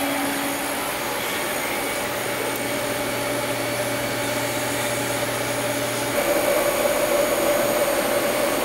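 TIG welding on exhaust pipe sections: a steady hiss and hum from the arc and the shop equipment around it. The tone shifts and gets a little louder about six seconds in.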